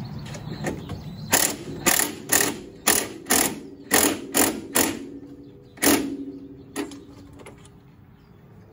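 Wrench tightening the top nut on a new coilover strut's shaft, snugging it down to squeeze the upper mount bushing. Heard as a run of about a dozen sharp metallic clicks with a short ring, roughly two a second, between about one and six seconds in, then a few fainter ones.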